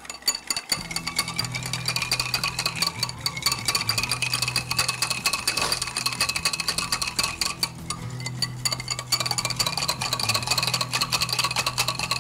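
A whisk beating ghee and water in a ceramic bowl: rapid, continuous tapping and scraping against the bowl as the mixture is whipped fluffy for samosa dough. A steady low hum runs underneath.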